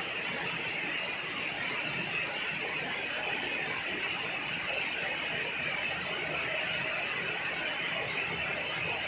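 Heavy rain pouring steadily onto garden foliage and a shade-net pergola: a dense, even hiss.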